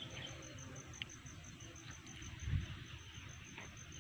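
An insect calling in a steady high pulse, about five pulses a second, over faint rustling and clicks of grass and twigs underfoot. A single low thump about two and a half seconds in is the loudest sound.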